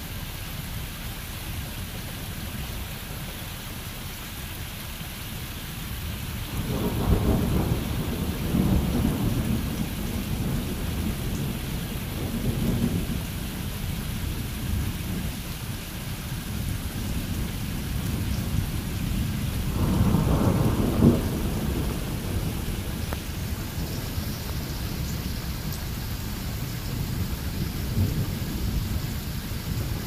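Steady rushing water noise, with two long low rumbles rising over it: one about seven seconds in that lasts several seconds, and a shorter one about twenty seconds in.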